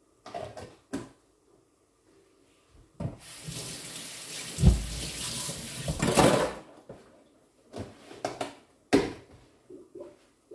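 A kitchen tap runs into a sink for about three and a half seconds, with a heavy knock partway through. Short knocks and clicks come before and after it.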